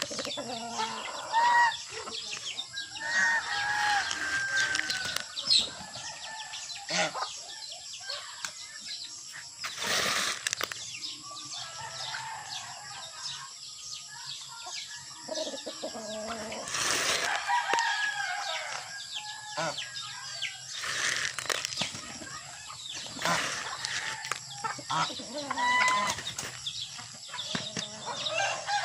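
Backyard chickens clucking and roosters crowing in short curved calls, with a few loud bursts of wing flapping scattered through.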